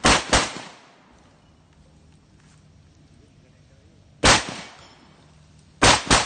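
Five shots from a 12-gauge shotgun fitted with a V6 muzzle brake: a quick pair at the start, a single shot about four seconds in, and another quick pair near the end, each with a short echoing tail.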